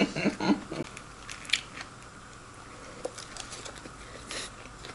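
Biting into and eating a burger: a few scattered crisp crunches and crackles, the loudest a short crunchy rustle about four seconds in.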